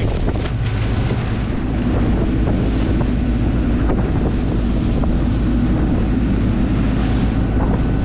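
Charter fishing boat's engine running steadily under way, a constant low drone, with wind buffeting the microphone and the rush of the boat's wake.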